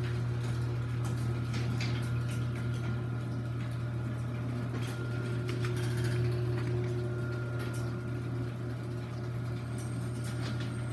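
Chamberlain chain-drive garage door opener running as it moves the door: a steady motor hum with light clicking and rattling from the chain drive.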